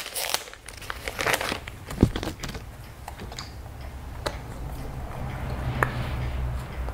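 Hands handling a small homemade blue squishy toy, making crinkly clicking sounds, with one sharp click about two seconds in. A low rumble builds in the last couple of seconds.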